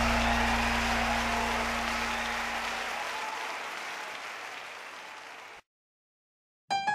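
Audience applauding over a held low note, the whole fading out steadily into total silence about five and a half seconds in; piano notes begin just before the end.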